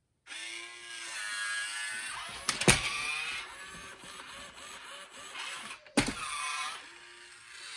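Robot elephant toy's gear motors whirring as it tips up into a handstand and back down. Its plastic body knocks sharply against the floor twice, a few seconds apart.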